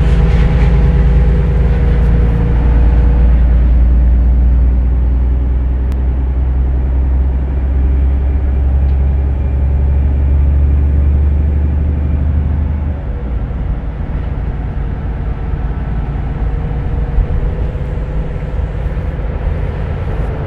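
City bus running, heard from inside the passenger cabin: a loud, deep engine rumble with a steady hum over it, the rumble easing off about thirteen seconds in.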